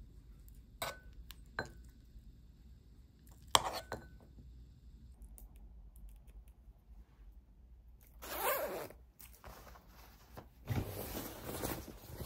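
A metal spoon clinks against a ceramic bowl a few times, each clink ringing briefly. Later come clothes rustling and a short zipper pull.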